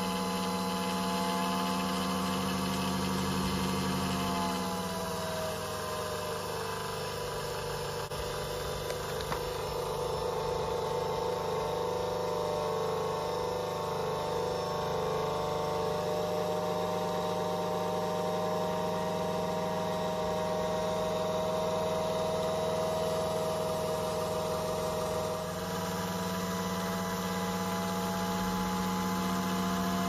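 Small electric motor running, spinning a magnet disc beneath a ring of copper coils, with a steady hum and whine. Its pitch drops about five seconds in and rises back near the end.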